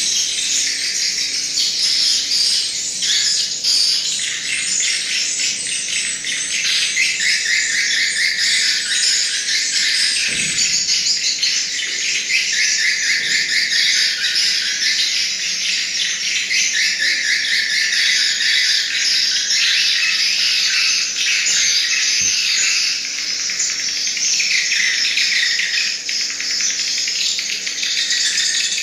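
Continuous, dense high-pitched chirping and trilling from small animals, in rapid phrases that shift every second or two.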